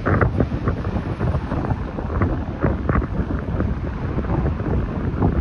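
Wind buffeting the microphone: a loud, uneven rumble that rises and falls in quick gusts.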